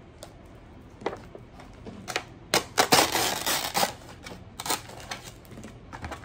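Plastic wrapping on an instant cup ramen bowl crinkling and tearing as it is unwrapped and the lid is peeled back. A run of sharp crackles and clicks, loudest about three seconds in.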